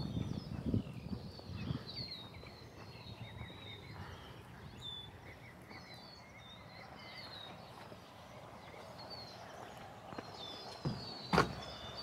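Small birds chirping with many short, high notes throughout, over a walker's footsteps. Two sharp knocks come near the end, the second the louder.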